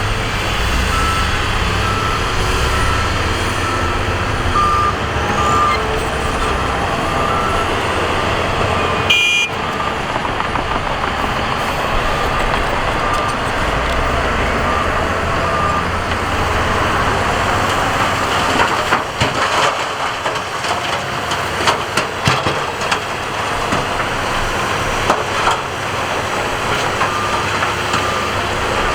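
Heavy diesel earthmoving machinery running, with a reversing alarm beeping about twice a second on and off. Irregular knocks and clanks come in the second half.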